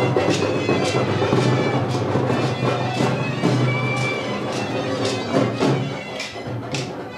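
Bagpipe music: a steady drone under the chanter's melody, with a regular percussion beat of about two or three strokes a second.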